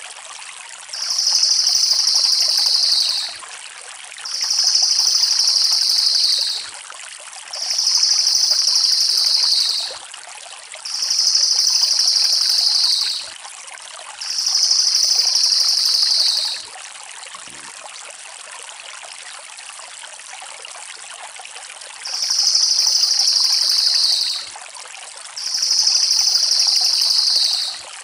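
Crested jay (cililin) giving long, fast rattling trills, each about two seconds, repeated about every three seconds with one longer pause past the middle. A steady hiss runs underneath.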